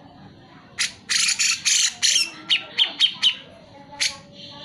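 Grey-cheeked bulbul (cucak jenggot) calling: a run of harsh, scratchy chatter, then four short sharp notes that drop in pitch, and one more harsh note near the end.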